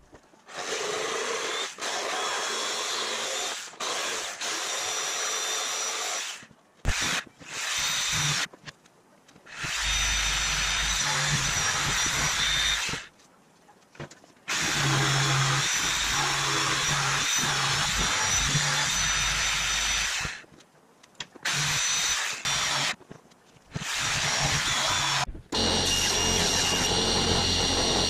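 Corded DeWalt jigsaw cutting OSB sheet in a series of runs of a few seconds each, stopping and starting again between them. Near the end a steadier power-tool sound with a low hum takes over.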